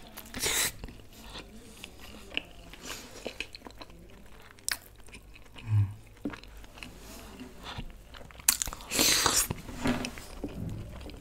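Close-miked chewing of a boiled egg from egg curry: a soft bite, then wet chewing with small clicks and smacks, and a louder burst of noise near nine seconds.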